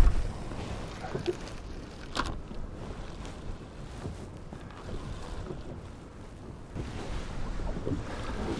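Wind rumbling on the microphone aboard a small rowboat, with a loud knock right at the start and a sharp click about two seconds in, like tackle or an oar against the boat.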